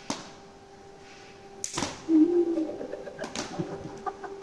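Three sharp slaps of a rubber slipper, one at the very start, the loudest a little under two seconds in, and a lighter one a second and a half later.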